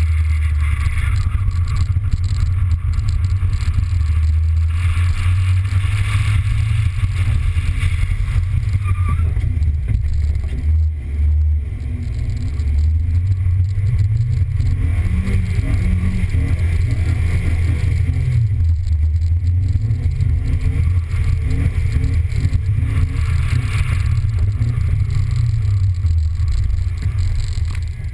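Car driving across wet pavement, heard through a camera mounted on its hood: a steady low engine and road drone, with a brief dip in level about eleven seconds in.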